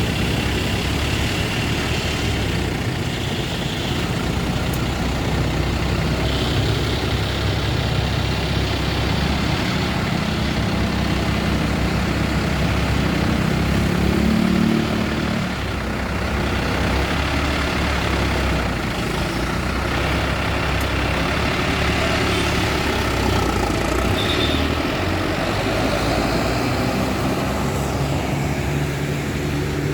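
Bus engines running in slow traffic: a steady low rumble that swells briefly near the middle.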